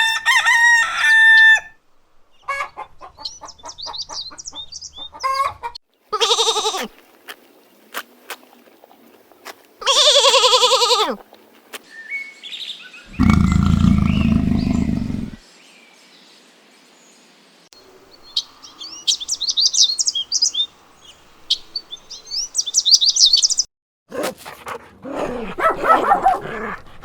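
A string of short bird and farmyard-animal calls: a rooster crowing twice, several bouts of high chirping, and one deep call of about two seconds near the middle.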